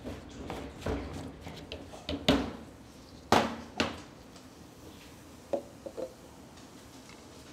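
Hard plastic clicks and clacks as a Ninja blender cup is twisted off its motor base and the blade lid is unscrewed and set down on a stainless steel counter. The loudest are sharp clacks a little over two seconds in and again at about three and a half seconds, followed by a few light taps near the end.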